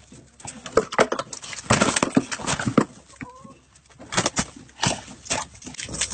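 Chickens beating their wings in a rapid, irregular flurry as a dog grabs them, with one short call about three seconds in.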